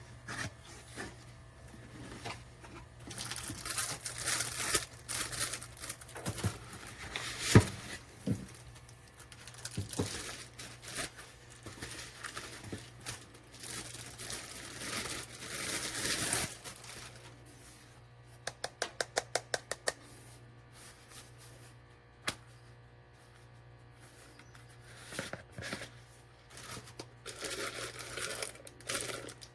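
Packaging being crinkled and handled, with scattered knocks and sharp clicks. A quick run of about ten even ticks comes about two-thirds of the way through.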